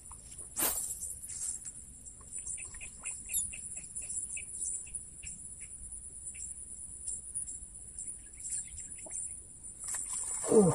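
Evening pondside ambience: a steady high-pitched drone of insects, with a run of short bird chirps repeated about three times a second for a few seconds. A sharp click comes about a second in, and a louder falling sound comes near the end.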